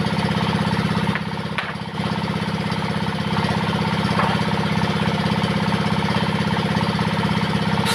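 Diesel engine driving a home-built table saw, running steadily with a fast, even pulse. The level dips briefly about a second in.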